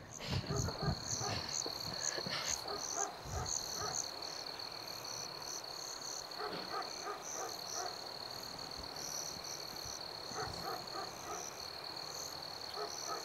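Night chorus of insects and frogs: a steady high insect trill with quick chirps above it, and short clusters of frog croaks now and then.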